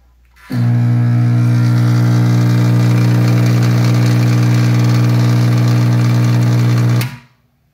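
CEN-TECH 69368 200 A battery charger switched on and running with a loud, steady low hum that cuts off suddenly about seven seconds in. The hum is a sign of a shorted, burned diode on its rectifier plate; the owner suspects the charger was hooked up with reversed polarity.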